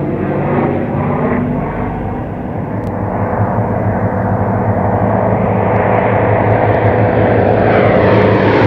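Warbird piston engines droning: a P-38 Lightning's twin V-12s for the first couple of seconds, then two P-47 Thunderbolts' radial engines growing steadily louder as they close in on a low pass.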